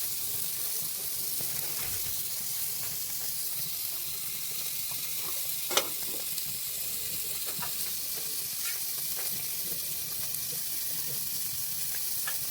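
Oil sizzling steadily in a pan as dried fish and tomato fry, with a spatula stirring and scraping in small clicks and one sharper knock about six seconds in.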